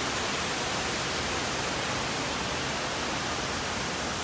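Waterfall running with a steady rush of falling water, an even hiss that holds constant throughout.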